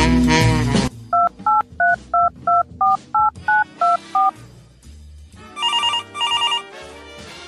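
A saxophone tune cuts off about a second in; then ten touch-tone keypad beeps dial a phone number, and an electronic telephone ring follows, sounding one double burst near the end.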